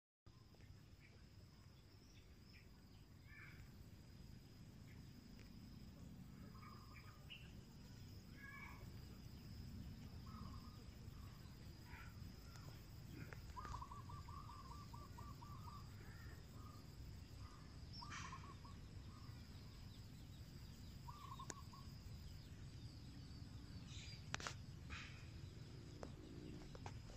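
Faint outdoor field ambience: scattered short bird chirps, including one quick trill about halfway through, over a steady high insect drone and a low wind rumble, with a few sharp clicks near the end.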